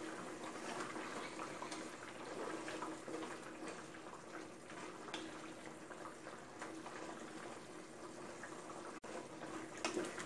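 Coconut-milk green curry simmering in an aluminium pot, a faint steady bubbling with small irregular pops and a low hum underneath. In the second half a wooden spatula stirs through the curry, with a few louder strokes near the end.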